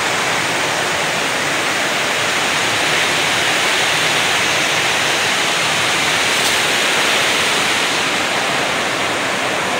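Fast-flowing river rushing over rocks and rapids: a steady, even rush of water.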